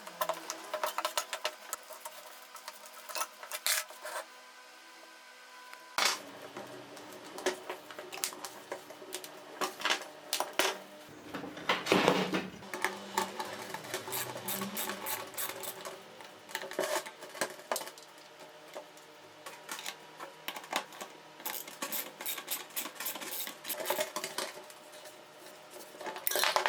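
Irregular metallic clinks, taps and light scrapes of hand work on small metal parts, coming in uneven bursts with a louder cluster about halfway through.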